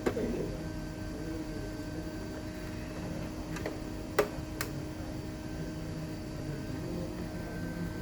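A steady low electrical hum with a few light, sharp clicks of small hard parts being handled. The loudest click comes about four seconds in, with two fainter ones around it.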